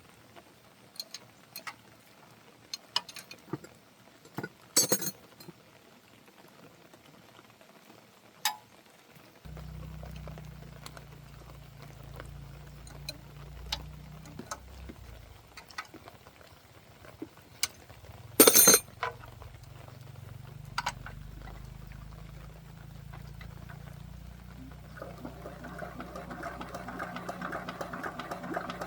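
Tools clicking and knocking on the tractor engine, then the engine, freshly rebuilt with new piston rings and connecting-rod bearings, starts and runs with a steady low drone about a third of the way in. There is one loud clank about two-thirds in. Near the end the engine's running note grows louder and busier.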